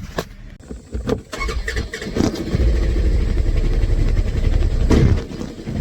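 Two sharp clicks, then a vehicle engine cranks, catches about two seconds in and settles into a steady idle.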